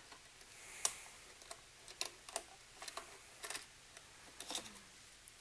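Irregular light clicks and ticks as a bundle of disconnected hookup wires is pulled out of a tube amplifier's chassis, the wires catching and knocking against parts.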